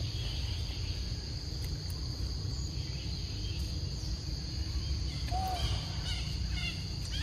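Steady high drone of insects in tropical forest over a low steady rumble, with a few short chirping calls about five to six and a half seconds in.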